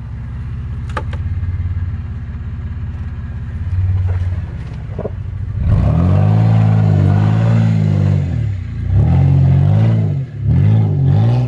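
Off-road 4x4 pickup's engine running low and steady as it crawls up a steep slope. A little over halfway in, it is revved hard in several rising and falling surges as the truck climbs under load to the crest.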